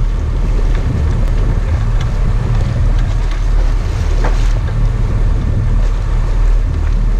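Sport-fishing boat's engine running steadily with a low drone, with wind buffeting the microphone.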